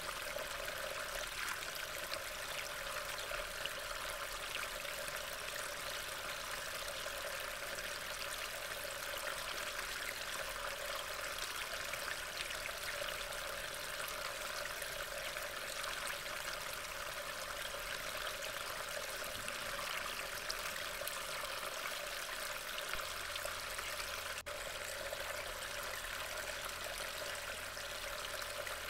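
Steady rain falling in woodland, an even wash of water noise picked up by a trail camera's microphone, with a brief dropout about 24 seconds in.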